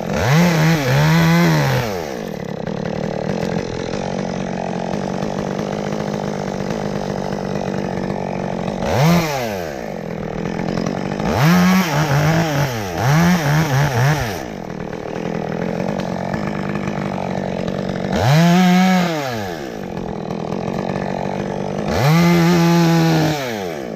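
Two-stroke chainsaw idling, with its throttle opened up to full speed and let back down about eight times in short bursts, as in cutting limbs.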